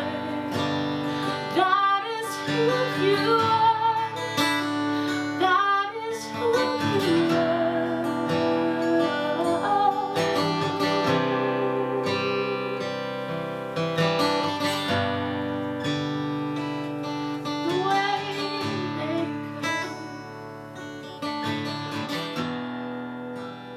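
Worship song with strummed acoustic guitar and a singer; the music gets quieter near the end.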